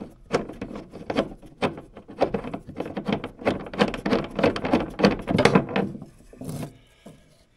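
A threaded fuel pickup fitting being unscrewed by hand from a vintage snowmobile's metal fuel tank: a quick, irregular run of clicks, scrapes and knocks of metal on metal that dies away near the end.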